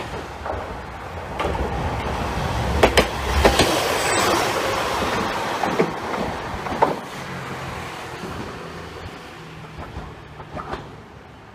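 Hankai Tramway streetcar running past on the track, its wheels clacking over rail joints in a few sharp strokes as it comes close about three to four seconds in, then its running sound fades away.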